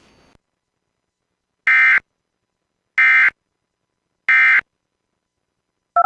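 Emergency Alert System end-of-message data tones: three identical short, harsh bursts of SAME digital data, about 1.3 seconds apart, marking the end of the severe thunderstorm warning. A rapidly alternating two-pitch tone sequence starts right at the end.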